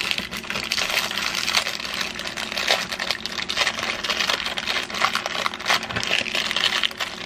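A sleeve of Ritz crackers being crushed by hand inside its plastic wrapper: a dense, steady stream of crinkling and crunching crackles.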